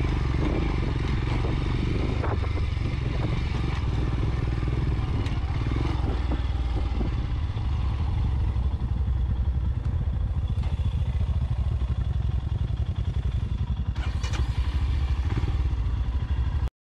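Royal Enfield Scram 411's single-cylinder engine running, with rattling over rough dirt at first, then idling steadily with the bike stopped. The sound drops out for an instant near the end.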